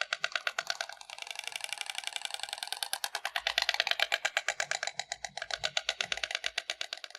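Stork bill-clattering: the bird snaps its bill rapidly in a long, even run of clacks, about ten a second, quickening for a moment in the middle.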